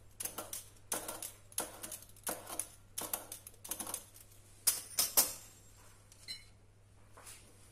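Metal fluted pastry wheel rolling and rattling across dough on a stone countertop in quick cutting strokes, about two a second. Two louder knocks come about five seconds in, as the cutter is put down on the counter.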